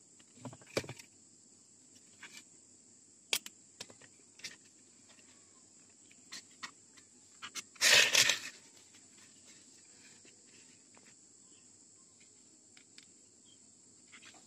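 Small clicks and taps of hands handling a small circuit board, wire and a marker pen on a styrofoam block, with one louder brief rustle about eight seconds in. A steady high insect trill runs underneath.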